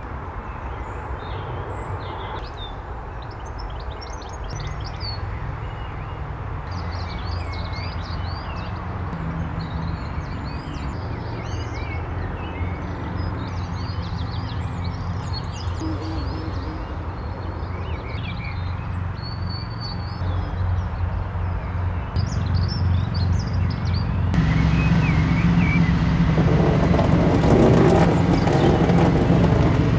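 Small birds chirping and singing over a low, steady engine-like drone that slowly grows louder. Near the end the birds are drowned out by a loud rushing noise.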